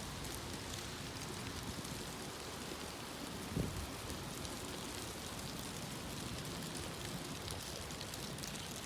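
Wind blowing steadily, a rushing hiss with fine crackle in it, and one low thump about three and a half seconds in.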